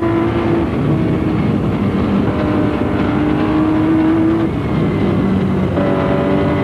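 Porsche 936's turbocharged flat-six racing engine heard from the cockpit, pulling hard with its pitch climbing slowly, broken by brief lifts, then dropping about four and a half seconds in.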